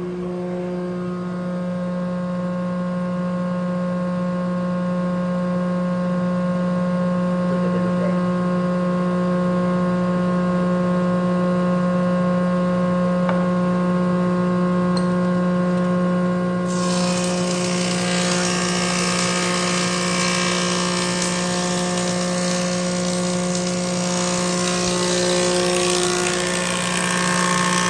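Oliver 299-D 24-inch planer running with a steady machine hum from its 5-horsepower direct-drive motor and four-knife cutterhead. About 17 seconds in, a board feeds through and the knives cutting the wood add a loud hiss for about nine seconds.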